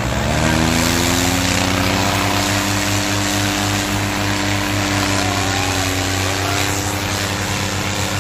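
Tractor diesel engine revving up sharply at the start, then held at high revs, working hard as it hauls a loaded trailer.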